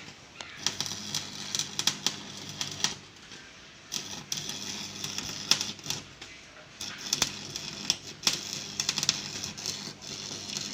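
Electric arc welding on thin sheet steel: a crackling, sputtering arc in three runs of a couple of seconds each, with short pauses between, over a steady low hum.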